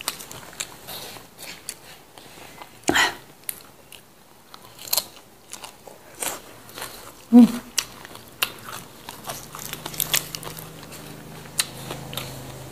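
Close-up eating sounds: raw leafy vegetables (lalapan) crunched and chewed with wet mouth clicks. A short voice sound falling in pitch comes about seven seconds in, and a low steady hum runs through the last few seconds.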